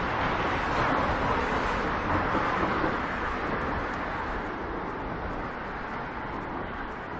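Road traffic: a car passing on the street, its tyre and engine rush loudest in the first few seconds and then slowly fading away.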